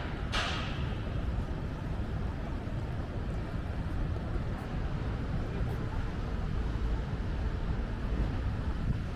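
Steady low rumble of city street traffic, with one sharp tap just after the start.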